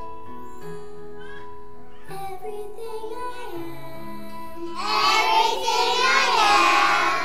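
A group of young preschool children singing together over an instrumental accompaniment. The singing comes in about two seconds in and grows much louder about five seconds in.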